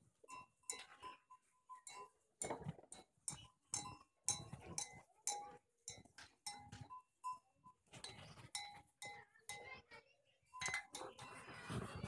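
A cow sucking milk from its own udder: an irregular run of short sucking sounds.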